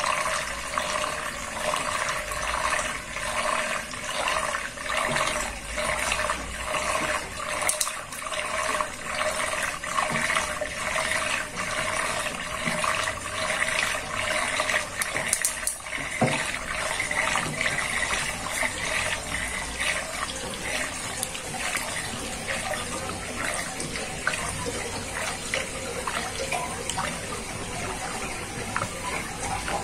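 Water swirling in a whirlpool and draining down a basin's plughole, a continuous watery rush with uneven gurgling pulses that ease off in the second half.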